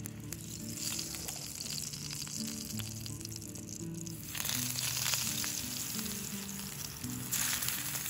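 Eggplant slices sizzling in hot oil in a frying pan on a camp gas stove. The sizzle grows much louder about four seconds in as a fresh raw slice is laid into the oil, and louder again near the end.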